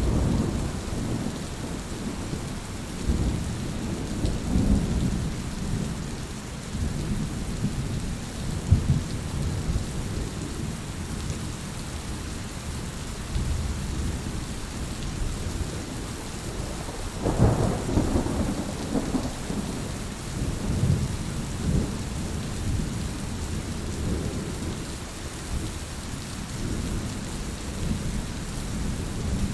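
Steady rain with rolls of thunder. The deep rumbles swell and fade several times, the biggest about two-thirds of the way through.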